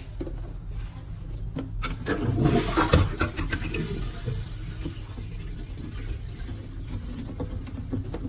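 Water swishing and trickling in a toilet cistern, swelling about two to three and a half seconds in, with scattered clicks and knocks of the fittings being handled.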